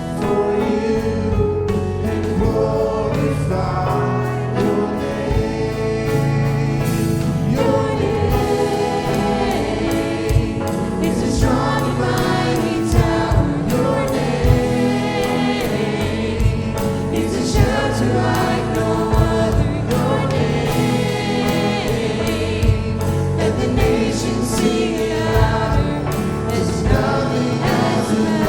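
Live contemporary worship music: singers over a band, with sustained bass notes and a steady drum beat.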